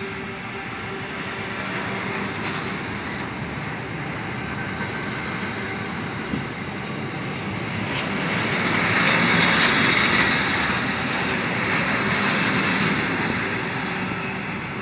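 Container wagons of an intermodal freight train rolling past, their wheels running on the rails in a steady rumble that swells louder and brighter about eight seconds in, then eases off.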